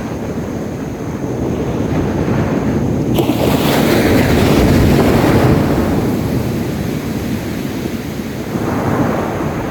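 Sea waves breaking and washing up a beach, with wind rumbling on the microphone. A wave breaks about three seconds in, and its wash swells and then ebbs away.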